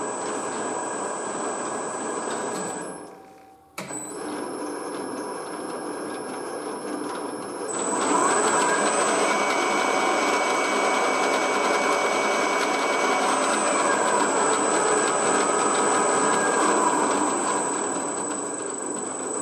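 Grizzly milling machine's spindle and motor running at low speed, a steady mechanical hum with a thin whine over it. The sound drops out for a moment about three seconds in, comes back, and grows louder about eight seconds in.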